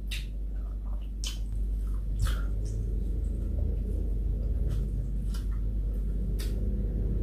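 A person chewing and smacking food close to the microphone, with scattered wet mouth clicks, over a low steady hum.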